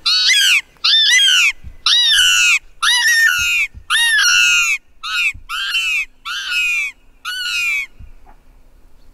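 Predator call sounded in about ten loud squealing cries, each about half a second long and rising then falling in pitch, stopping about eight seconds in. It is blown to lure a fox or other predator to investigate.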